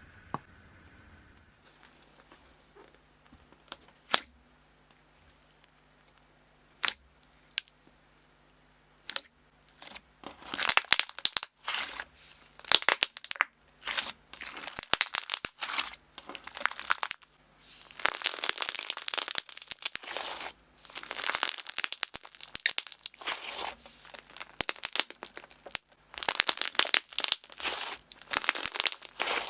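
Clear slime being pressed and squished: a few single sharp pops in the first ten seconds or so, then repeated bursts of crackly, clicking squishing, each a second or two long with short pauses between.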